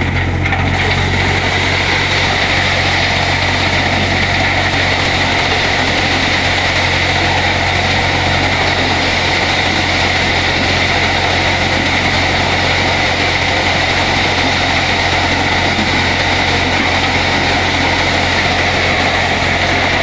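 Malwa maize thresher running steadily, threshing the husked corn cobs tipped into its hopper: an even, unbroken mechanical din with a constant low hum.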